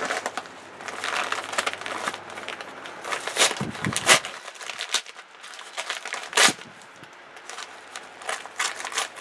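Plastic bubble-lined mailer envelope crinkling and crackling as it is handled and pulled open by hand. There are sharper crackles about four and six and a half seconds in, and a dull bump just before the first.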